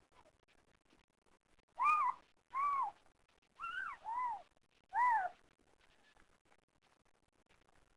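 Newborn kittens mewing: five short, high-pitched cries, each under half a second and rising then falling in pitch, with two of them close together in the middle.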